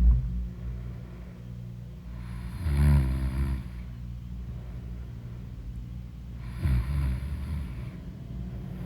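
A person snoring: a low rumble that carries on throughout, swelling into louder snoring breaths at the start, about three seconds in and about seven seconds in.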